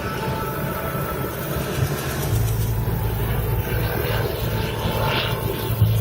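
Helicopter flying, a steady low drone of engine and rotor that grows louder about two seconds in.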